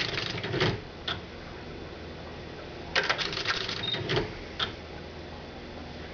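Old Sears electronic typewriter, driven by an Arduino, striking out two quick runs of characters: a rapid clatter at the start and another about three seconds in, each followed by a single strike. A steady hum runs underneath.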